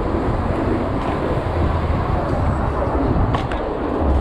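Steady rush of wind buffeting the camera's microphone, with tyre and street noise underneath, as a downhill mountain bike rolls along a city street. A couple of faint clicks come about three seconds in.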